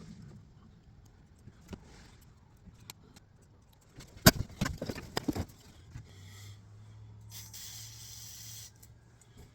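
Small hard objects clicking and rattling together as they are handled, about four seconds in. Then a steady low hum sets in, with a hiss lasting about a second near the end.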